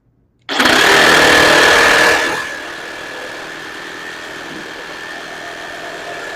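DeWalt DCS384 brushless cordless reciprocating saw with a wood blade starting up about half a second in and cutting a 4x4. It is loudest for the first two seconds, then runs steadier and quieter, with a steady motor whine throughout.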